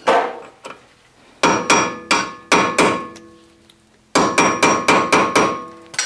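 Hammer tapping an Allen bit into the rusted Allen-head screw that holds a VW Bus front brake rotor to the hub, seating it fully before the screw is broken loose. The metallic, ringing taps come as a couple of single strikes, then two quick runs of six or seven taps each with a short pause between them.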